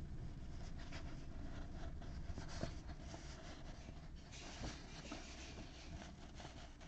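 Faint handling noise: soft rustles and light taps over a low steady hum.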